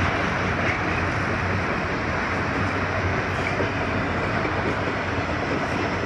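Freight train of autorack cars rolling steadily past, a continuous rumble and rattle of wheels on the rails with no horn.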